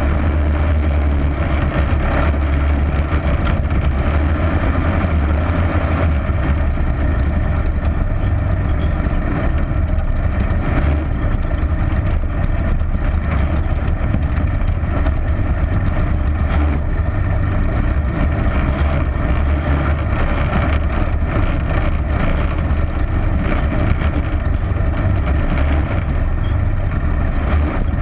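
Dirt-track race car's engine running hard and steady, heard through a camera mounted on the car.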